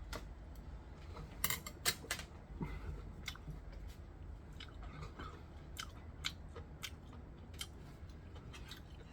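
A person chewing and eating, with scattered small clicks and mouth noises.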